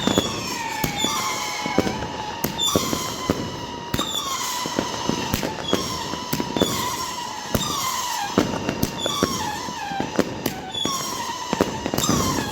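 New Year's fireworks going off continuously: whistles about once a second, each falling in pitch, over dense crackling and sharp bangs.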